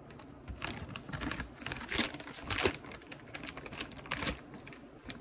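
Clear plastic parts bag rustling and crinkling in the hands, with irregular light clicks and taps as a new tie rod end and small parts are handled.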